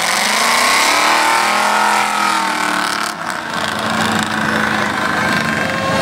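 Big off-road truck engine revving up over about two seconds and then easing off in the mud pit, with engines running steadily after.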